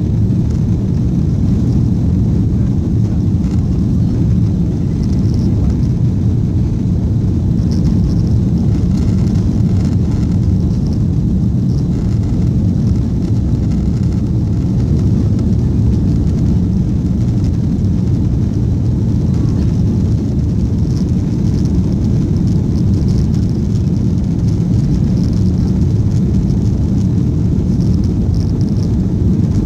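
Steady low rumble of an Airbus A330's jet engines and rushing air, heard from inside the passenger cabin while the airliner climbs after takeoff.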